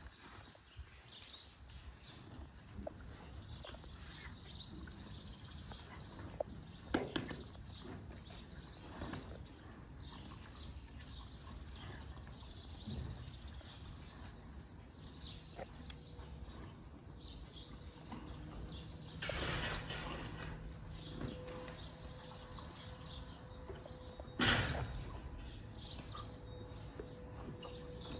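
Faint horse-barn ambience: a saddled horse standing and shifting, with scattered small knocks and a few faint bird chirps. A longer rustling noise comes about two-thirds of the way through, and a single sharp noise, the loudest sound, a few seconds later.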